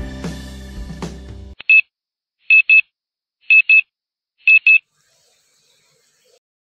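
Music cuts off abruptly about a second and a half in. Then come a single high-pitched electronic beep and three quick double beeps (beep-beep), about one pair a second.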